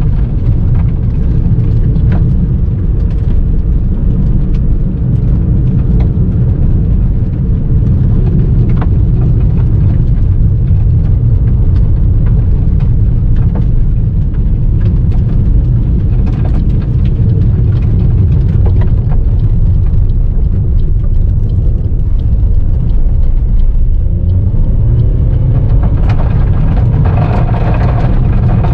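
Car driving on a gravel road, heard inside the cabin: a steady low rumble of tyres on gravel, with scattered clicks of loose stones against the car. Near the end the engine note rises as it accelerates.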